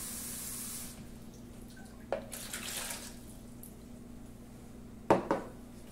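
Kitchen faucet water running into a glass measuring cup, stopping about a second in. A knock follows about two seconds in with a short hiss after it, and two sharp knocks near the end are the loudest sounds.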